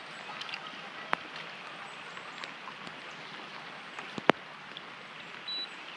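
Steady rain falling, an even hiss, with two sharp knocks, the louder one about four seconds in, and a brief high beep near the end.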